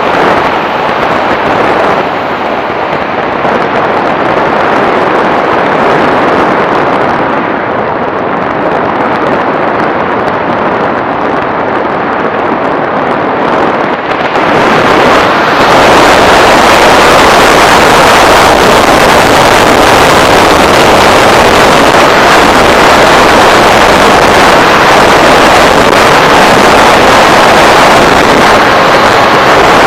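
Loud, steady rushing noise from an FPV model aircraft in flight: wind and propeller noise on its onboard microphone. It grows louder and brighter about halfway through.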